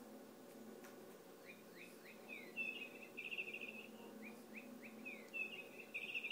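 Toy bird chirping: a few short swooping whistles followed by a rapid trill, the same phrase played twice.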